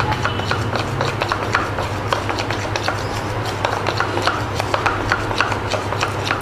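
Metal spoon stirring thick cake batter in a plastic bowl, clicking and scraping against the bowl's sides a few times a second as the food colour is mixed in. A steady low hum runs underneath.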